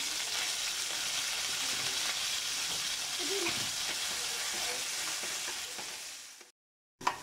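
Oil sizzling steadily in a nonstick kadai with ginger-garlic paste frying, as chopped onions and tomatoes are tipped in and stirred with a spatula. The sizzle fades and cuts off suddenly near the end.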